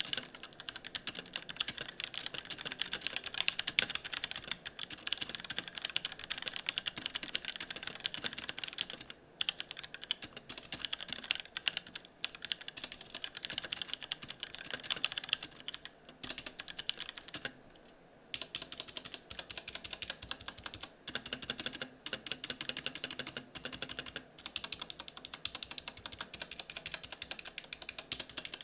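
Fast typing on a Tecware Spectre Pro mechanical keyboard with Outemu Brown tactile switches and thin double-shot ABS keycaps: a steady, rapid clatter of keystrokes broken by a few brief pauses.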